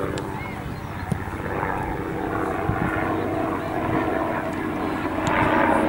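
A steady low engine drone with a constant hum, getting somewhat louder near the end.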